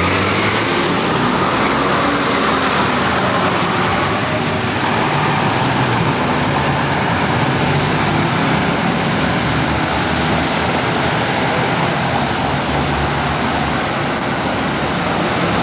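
Diesel bus engine running, its pitch shifting as it pulls, under steady road and traffic noise.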